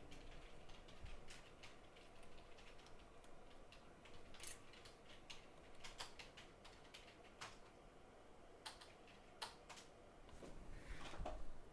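Faint, scattered light clicks and taps of small tools and a metal stencil being handled on a repair bench, with a short scraping sound near the end.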